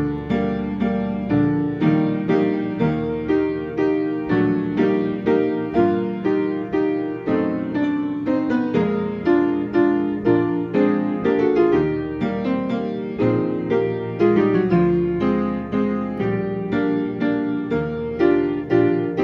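Player piano playing a QRS word roll: piano chords under a melody line, with notes struck at a steady beat.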